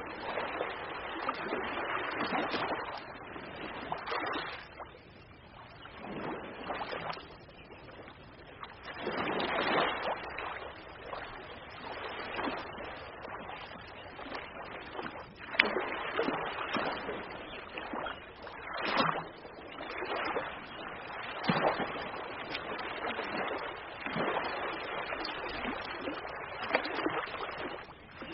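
Ocean waves washing in and breaking, the surf swelling and falling away every two to three seconds.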